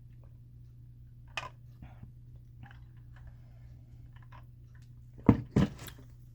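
Small clicks and taps of makeup packaging being handled, over a steady low hum, with two sharp knocks close together about five seconds in, like a palette or box being set down on a table.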